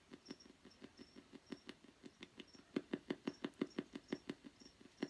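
Spirit box sweeping rapidly through radio stations: a steady run of short static blips, about six a second, growing louder about halfway through.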